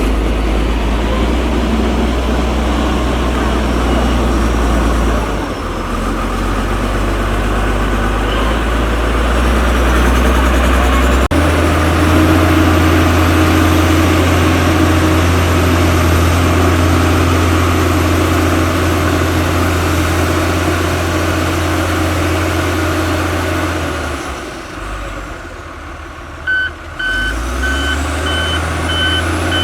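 Heavy diesel earthmoving machine working gravel, its engine running under changing load: it drops back briefly, then runs harder for a long stretch, eases off, and picks up again. Near the end a reversing alarm starts beeping steadily.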